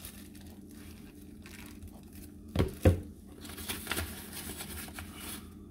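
Hands working at the counter and stove while making flour tortillas: two sharp knocks about two and a half and three seconds in, then a few seconds of soft rustling, over a steady low hum.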